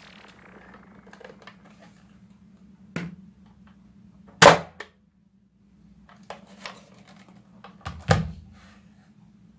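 Plastic clicks and snaps from a toy foam-dart blaster being handled and loaded, the sharpest snap about halfway through and another strong one near the end, over a faint steady hum.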